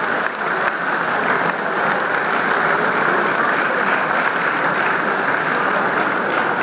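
Audience applauding: a steady, sustained round of clapping from a hall full of people.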